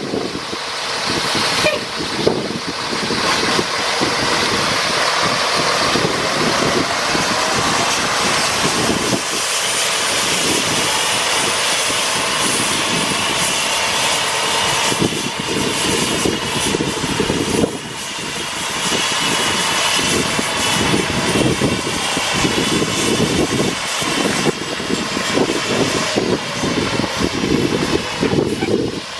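Mack E7 turbo-diesel inline-six of a 2006 Mack CXN truck tractor running as the truck pulls away across a gravel yard. A faint whine rises and falls over the engine note, and the overall level dips briefly a few times.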